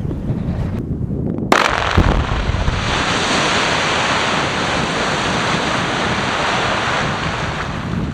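Quarry production blast: a sharp crack about one and a half seconds in, a heavy low boom half a second later, then a long steady rushing noise as the blasted rock face breaks and slumps forward. Wind buffets the microphone throughout.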